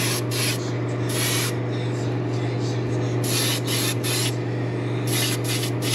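Airbrush spraying pearl white paint in short, repeated bursts of hiss as it makes light passes over a lure blank through netting, with quicker pulses near the end. A steady low hum runs underneath.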